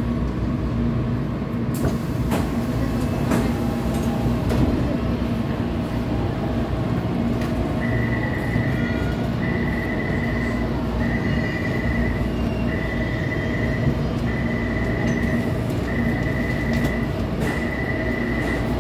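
Taipei Metro C321 train (GTO-VVVF) running and stopping at a station, with a steady low hum and wheel noise and a few sharp clicks early on. From a little before halfway, a door warning chime sounds seven long, evenly spaced beeps.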